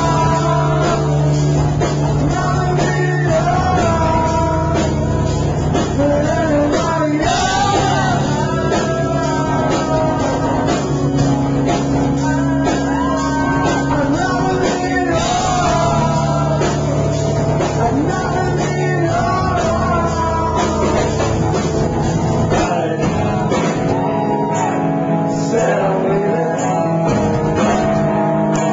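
Rock band playing live: a singer over guitars and a steady bass line, with drums.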